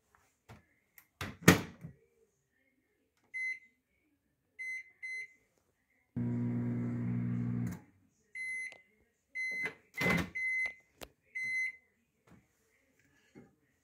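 A 700-watt microwave oven: its door shuts with a thud, three short high keypad beeps set the time, and the oven runs with a steady hum for about a second and a half. It then gives a series of short high beeps at the end of the cycle, with the door popped open with a thud among them.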